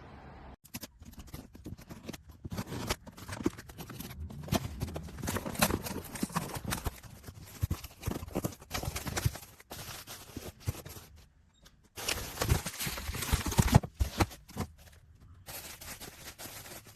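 Irregular knocks, clicks and clatter of objects being handled, with a few short pauses.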